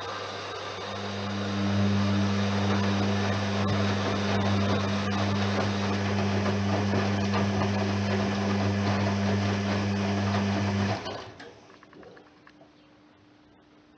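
Privileg 3020 washing machine running on a 95 °C cotton programme: a steady motor hum that swells about a second in, holds, then cuts off suddenly near the end, leaving only a faint hum.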